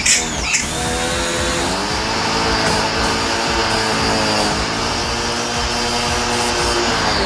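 Small electric pressure washer (power sprayer) running, its motor whine with a hiss of water spray; the motor speeds up in the first second and winds down near the end.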